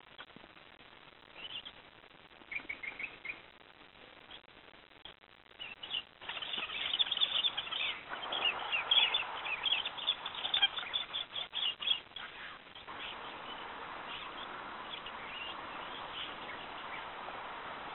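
Small birds chirping in a field recording: scattered calls at first, a busy burst of chirping from about six to twelve seconds in, then a steady hiss under fainter calls.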